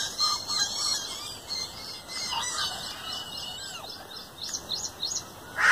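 Small birds chirping in many quick, high calls. A crow's loud caw starts right at the end.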